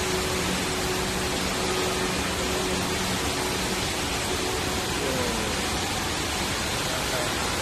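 Steady rush of the Rain Vortex, Jewel Changi Airport's indoor waterfall, pouring down from the glass roof into its basin. A faint low hum runs under it for the first three seconds.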